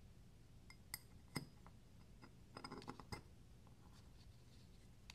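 Sparse small clicks and light taps of folding-knife parts and tools being handled during reassembly: a sharp tick about a second in, a louder click half a second later, and a short cluster of clicks about three seconds in, over a faint low hum.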